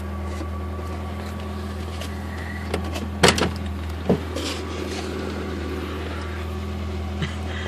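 Lada 2107's inline-four engine idling steadily shortly after a cold start, heard from inside the cabin. A sharp click sounds a little over three seconds in, with a smaller one about a second later.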